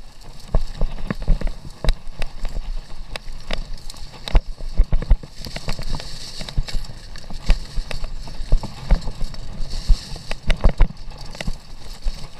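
Commencal mountain bike rattling over a bumpy, overgrown dirt single track: irregular sharp knocks and clatter from the bike, with low thumps from the rough ground.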